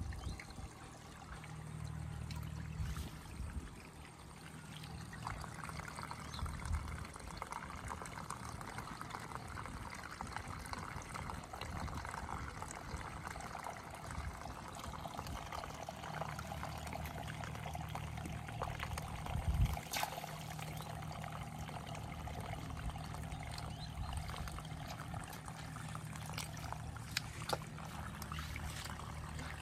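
Water trickling steadily, with a few light knocks, the clearest about twenty seconds in.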